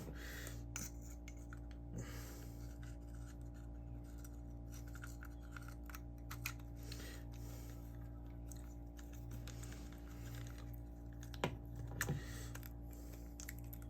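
Faint small clicks and scrapes of an Abu Garcia Ambassador 5000 baitcasting reel's parts being handled while its gears are oiled and it is fitted back together, with a few sharper clicks near the middle and end. A steady low hum runs underneath.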